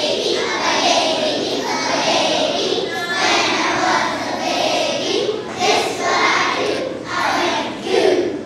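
Many young schoolchildren's voices at once, a steady mass of overlapping child voices.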